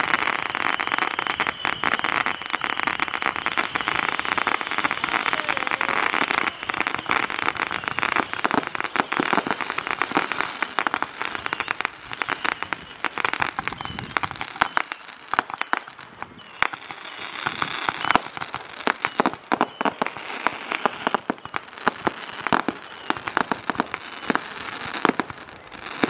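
Fireworks: a Saturn missile battery firing small rockets in quick succession. There is a dense hiss for the first several seconds, then a long run of sharp pops and crackles.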